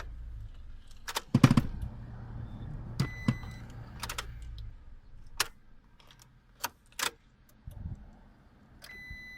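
Car with clicks and knocks of hands and parts at work, the loudest knock about a second and a half in. A low steady hum runs through the first half and stops. A short electronic beep sounds about three seconds in and again near the end.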